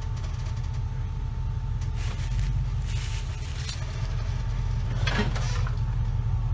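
Off-road Jeep's engine running low and steady as it crawls slowly over boulders, heard as a low rumble, with a few short bursts of higher noise about two to four seconds in and again just after five seconds.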